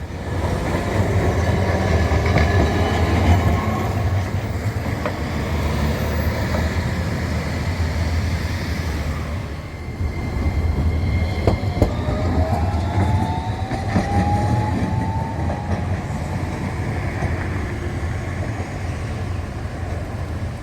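Rail vehicle running by with a steady low rumble and wheel noise; about twelve seconds in a rising whine sets in for a few seconds.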